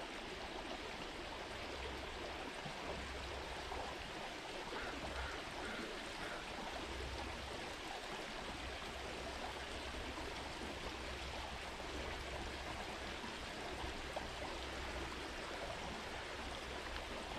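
Small forest creek flowing over a shallow stony bed: a steady rush of running water, with a low rumble that comes and goes underneath.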